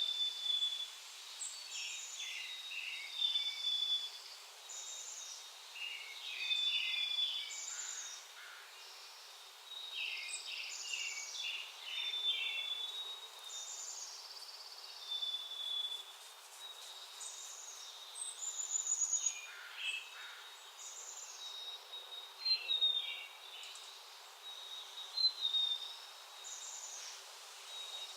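Small backyard songbirds chirping and calling over and over, short high calls overlapping one another, with a faint steady high tone underneath.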